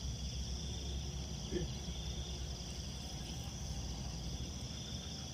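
Night insects, crickets, chirring steadily in grass as a high continuous trill, over a low pulsing hum.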